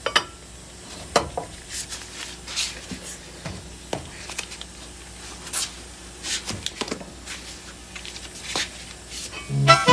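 Scattered metallic clicks, knocks and scrapes of a cross wrench on wheel lug nuts as they are forced loose. Swing music starts near the end.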